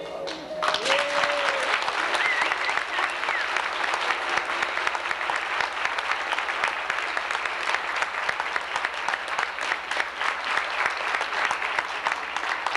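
Audience applauding: many hands clapping in a dense, steady patter that starts about half a second in and keeps going.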